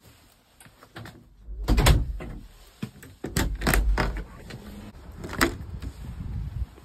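A series of door knocks and latch clicks with footsteps on a tiled floor, over the low rumble of a handheld phone being moved about. The loudest knocks come about 2 seconds in and again between 3 and 4 seconds.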